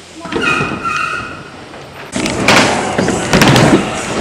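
Stunt scooter riding on skatepark ramps: a brief high squeal early on, then from about two seconds in a loud rolling rush of the wheels with several sharp knocks and thuds.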